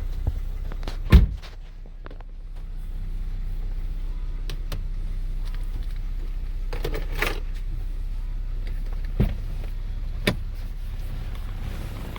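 Lexus GS350 under way, heard from inside the cabin: a steady low drone of engine and road noise, dipping briefly and then building again. A sharp knock sounds about a second in, and two shorter clicks near the end.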